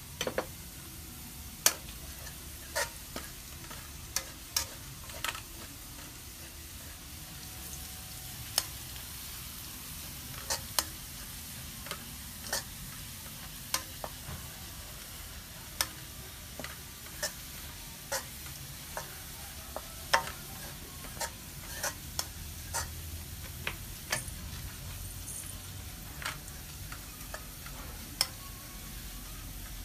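Food cooking in a pan or pot: a steady sizzling hiss with irregular sharp clicks, roughly one a second.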